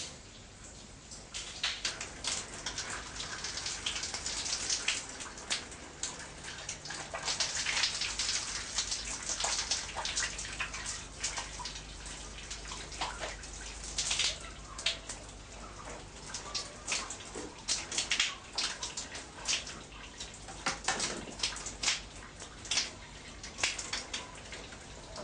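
Water splashing and pattering in irregular bursts.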